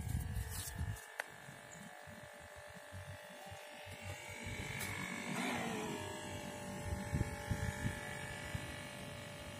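Small Tamiya electric motor of a toy foam tugboat running steadily with a thin buzzing whine, over gusts of wind on the microphone.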